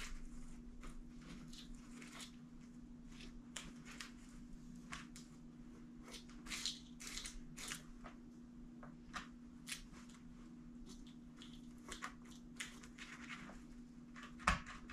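Light scraping and rustling of hot glue being worked over mesh drywall tape on carpet with a hot glue gun and a plastic brush handle, in short irregular strokes. A steady low hum runs underneath.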